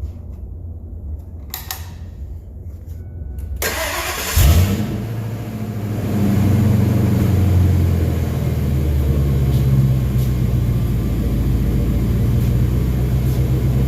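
Ford F-250's 5.4-litre V8 started after its oil change: a couple of clicks, the starter cranks for under a second, the engine catches with a brief rev and settles into a steady idle.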